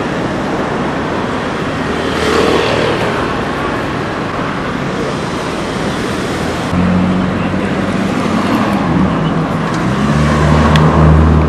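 Busy night-street ambience with traffic and crowd noise. A low, steady engine hum comes in suddenly about two-thirds of the way through and grows louder near the end.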